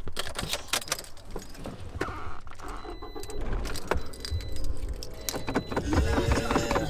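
A bunch of car keys jangling and clicking as they are handled, a run of quick sharp clicks. Near the end a low rumble and a pitched sound come in.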